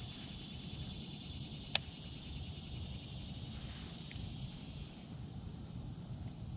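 Steady insect chorus with a low rumble underneath, broken once by a sharp click a little under two seconds in.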